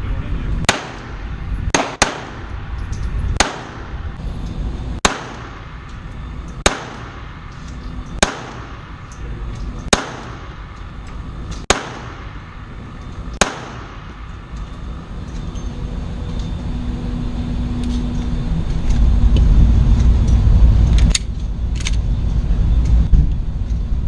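Glock 42 pistol in .380 Auto firing about ten single shots at a slow, even pace, roughly one every one and a half seconds, with two coming close together about two seconds in. After the last shot a low rumbling noise builds up, with a couple of knocks near the end.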